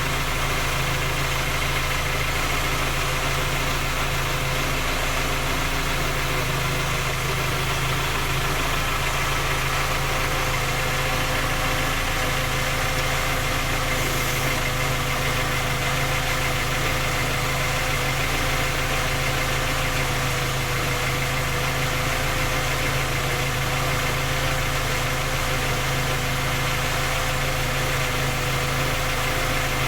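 Skoda Octavia A5 1.6 MPI four-cylinder petrol engine idling steadily. This is an engine with a knock when cold that three engine repairs have failed to trace.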